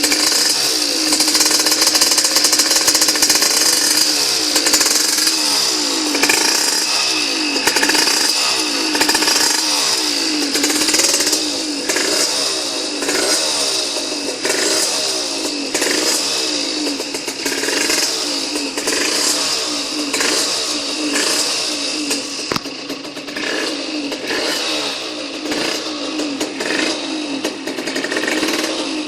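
Puch Condor 3's 49cc reed-valve two-stroke engine, breathing through a 21 mm Dellorto carburettor and a Yasuni expansion pipe, being revved over and over in short throttle blips, its pitch rising and falling about once a second.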